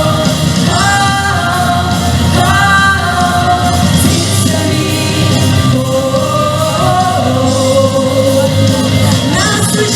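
A song with a sung vocal over full backing music, the voice holding long notes that slide up into pitch.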